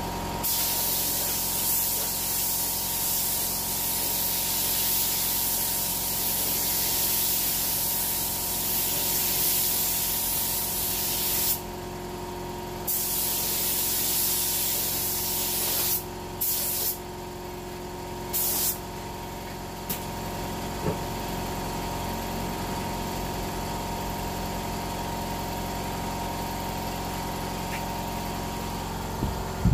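HVLP spray gun spraying a coat of paint, a steady hiss of air and atomised paint. It cuts off briefly near the middle, comes back, then gives a few short bursts before stopping about two-thirds of the way through. A steady hum runs underneath.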